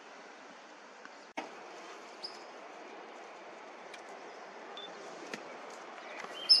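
Steady outdoor background hiss with a few brief high-pitched chirps, the loudest just before the end.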